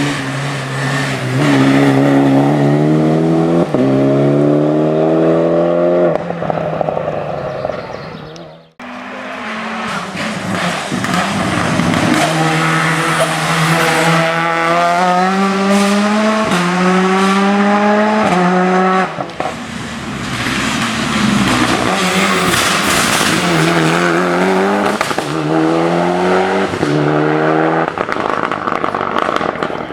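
Hill-climb race car engines at full throttle accelerating, the pitch climbing and dropping back with each quick upshift. The sound breaks off abruptly about nine seconds in, then another car does the same, and later a third.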